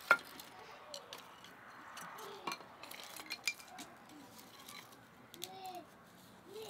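Dishes and kitchen utensils clinking and knocking. A loud, sharp clink comes right at the start, with several lighter clinks scattered after it. A few brief, faint voice sounds come near the end.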